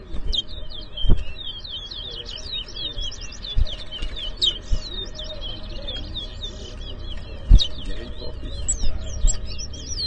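Chestnut-bellied seed finches (towa-towa) singing in a song contest: a fast, unbroken stream of high, sliding whistled chirps. Two dull knocks come about a second in and again about three-quarters of the way through.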